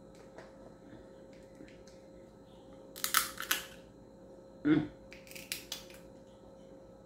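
Crab shell being broken and picked apart by hand: a cluster of crackling snaps about three seconds in and more clicks and cracks a couple of seconds later, with a brief low sound between them.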